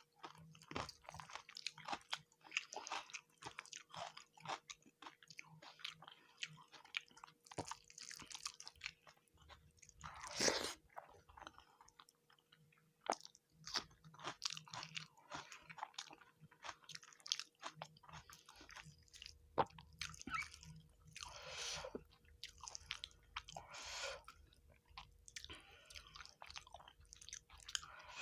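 Close-miked chewing of fish curry and rice eaten by hand: irregular wet mouth clicks, smacks and light crunches, with a few longer, louder mouth noises, the loudest about ten seconds in.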